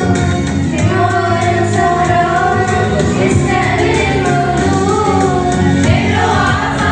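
Voice singing an Arabic Christian hymn over instrumental backing with a steady beat.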